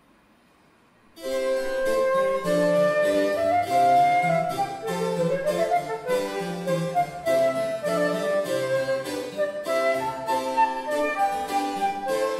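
Baroque trio sonata starting after a second of near silence: harpsichord continuo with a transverse flute melody, and a recorder joining near the end.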